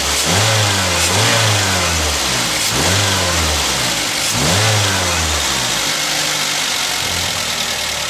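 Car petrol engine with its MAP sensor unplugged, running rough on the ECU's backup values with the check-engine light on. It is revved about three times in the first five seconds, each rev rising and falling back, and then settles to idle.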